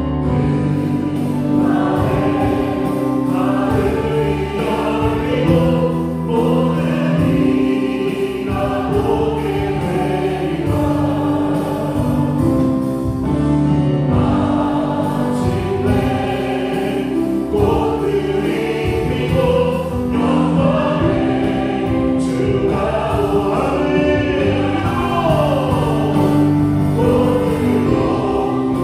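Live worship music: a choir singing a hymn, accompanied by a Yamaha Montage 8 keyboard and a bass guitar.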